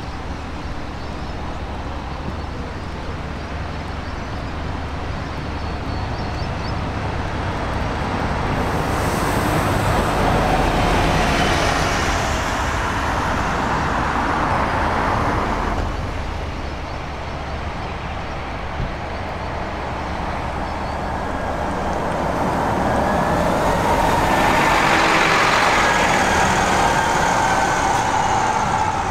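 Shuttle buses driving past: a steady low engine hum with two louder passes, each swelling up and fading away, the first about a third of the way in and the second near the end, with a faint changing whine as each goes by.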